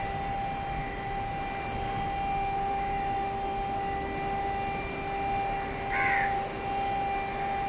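A crow caws once, briefly, near the end. It sounds over a steady wash of background noise and a constant hum.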